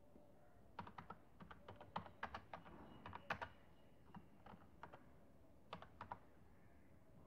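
Typing on a computer keyboard: faint, irregular keystroke clicks in short runs with brief pauses between them.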